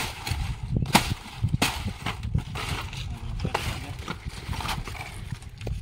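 A handful of sharp knocks at irregular intervals over a low, steady rumble. The loudest come at the start and about a second in.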